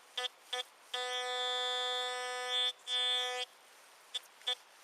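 Fisher F4 metal detector sounding its buzzing target tone as the coil sweeps back and forth over a buried target. It gives two short beeps, then a long steady tone lasting nearly two seconds, a shorter one after it, and two faint blips near the end. It is a strong, very consistent 'squealer' signal.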